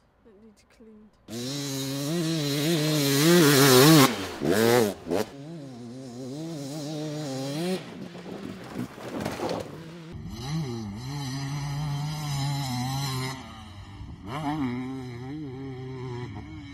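Off-road motorcycle engines revving, pitch rising and falling with the throttle, in two separate recordings. The first starts about a second in. About ten seconds in, a thinner-sounding second recording of a bike takes over.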